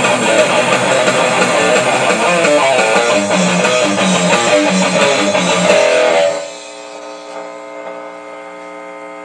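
Sludge metal song with electric guitars playing, then ending about six seconds in on a single chord left to ring out.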